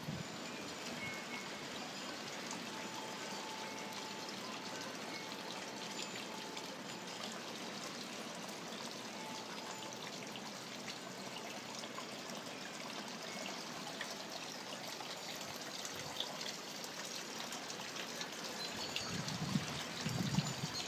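Brass garden wind bell ringing faintly, one tone held for a few seconds and a few brief higher pings, over a steady trickling, rushing noise; a few low thumps near the end.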